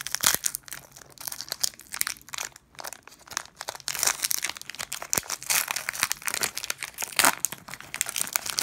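Foil wrapper of a Pokémon booster pack being crinkled and torn open by hand: a dense run of irregular crackles and rustles, louder about four and seven seconds in.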